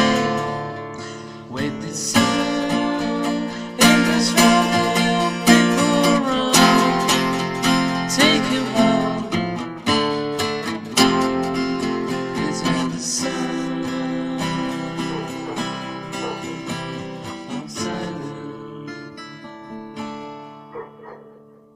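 Acoustic guitar strummed and plucked as the closing chords of a song, each chord ringing on, then fading out near the end.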